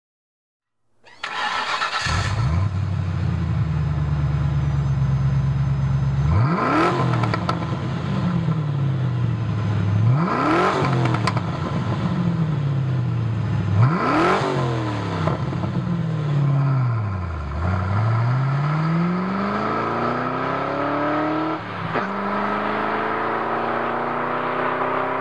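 Ford Mustang engine through a Flowmaster Outlaw dumped exhaust, a loud open race muffler exiting ahead of the rear axle. It starts up about a second in and idles, then is blipped three times in quick sharp revs that drop back to idle. After that comes a slower rev up and down, then a long steady climb in revs near the end.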